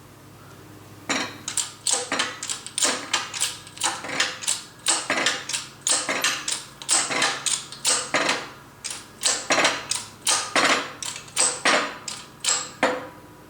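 Shop press working as the rear bearing is pressed onto the gear train of a Triumph Spitfire 1500 single-rail gearbox: a run of sharp metallic clicks and clanks, about two a second, each with a short ring.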